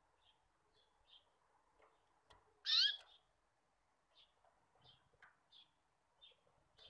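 Wire whisk beating pastry-cream batter in a ceramic bowl, faint light clicks and scrapes about twice a second. About three seconds in, one loud, short bird chirp with sliding pitch stands out above the whisking.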